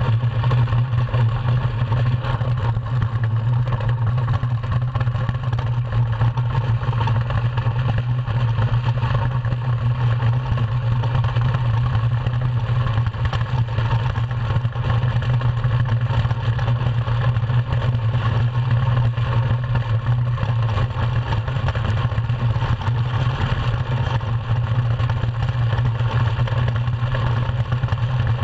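Iceboat's steel runners rumbling over the ice at speed: a steady low drone carried through the hull, with a hiss of wind and ice noise over it.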